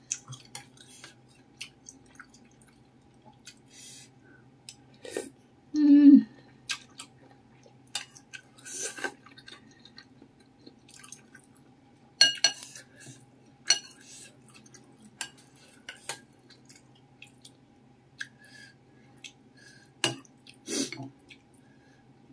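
Close-up eating sounds: a metal spoon tapping and scraping in a ceramic bowl of meatball soup with noodles, with scattered short slurps and mouth sounds, and one louder, lower sound about six seconds in. A faint steady hum runs underneath.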